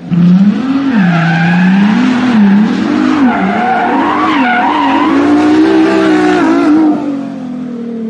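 Sports car engine revving in rising and falling surges over screeching tyres, as in a burnout; it eases off about a second before the end.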